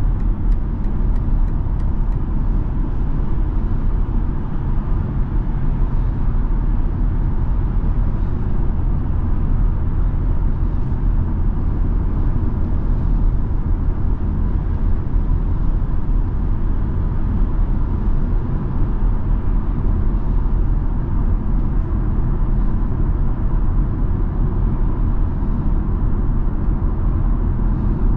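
Steady low drone of tyre, road and engine noise heard inside the cabin of a BMW X3 M40i cruising at freeway speed.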